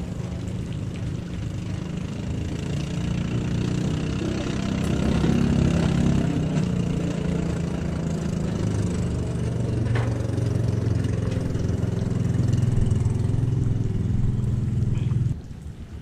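An engine running steadily with a low hum, louder through the middle, cutting off suddenly near the end.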